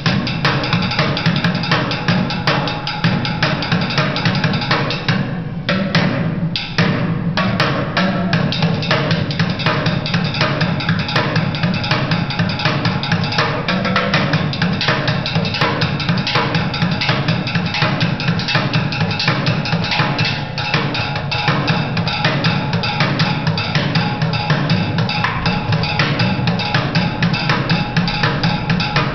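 Live drums played in a fast, dense rhythm of hits, with a short break in the higher strokes about five seconds in.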